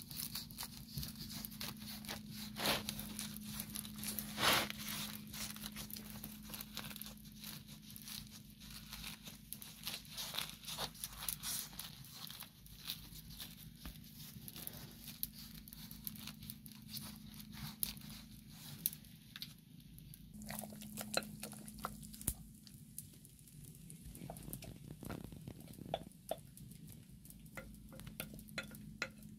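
Gloved hands handling the layers of a crisp baked flatbread on a wooden board: soft rustling and crinkling with many small crackles and light scrapes. A low hum runs underneath.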